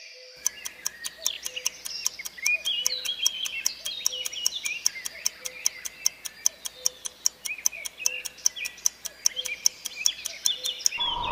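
Quiz countdown clock ticking with quick, even ticks over a background of birds chirping. Near the end a louder rising whoosh starts.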